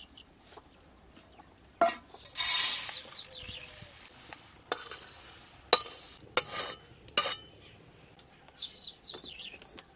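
Dry-roasted mung dal tipped out of a metal karahi into a steel bowl: a short rush of dry lentils pouring about two and a half seconds in, then a metal spatula scraping and knocking against the wok several times.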